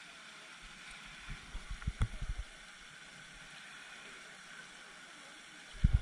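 Steady hiss of a pond fountain's spray, with low thumps on the microphone: a cluster of them from about a second and a half to two and a half seconds in, with a sharp click among them, and a louder pair near the end.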